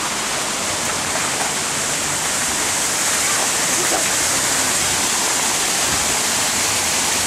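Steady rush of water running over rocks: an even, unbroken hiss.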